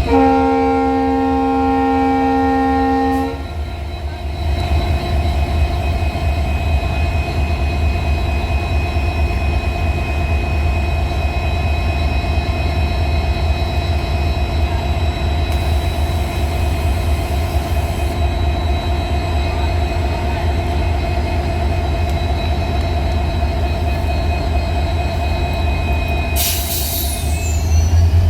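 WDP4D diesel-electric locomotive with its EMD 16-cylinder two-stroke engine sounds one long multi-tone horn blast of about three seconds, then hums steadily as it pulls out. A high squeal rises briefly near the end.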